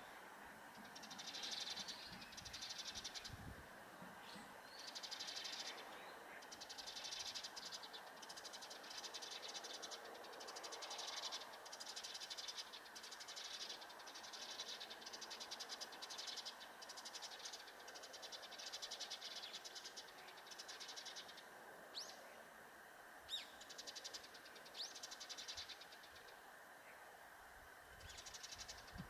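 Insects chirping: a high, rapidly pulsed trill, each burst about a second long, repeating with short gaps. A few sharp, brief higher chirps come near the end.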